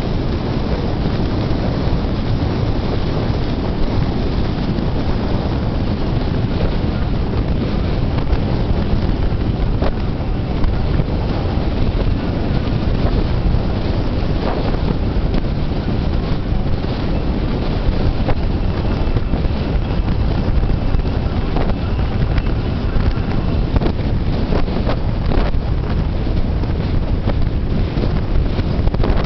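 Steady wind rush buffeting a camera microphone at the open window of a Hyundai Accent driving at about 45 mph, with road and tyre noise underneath.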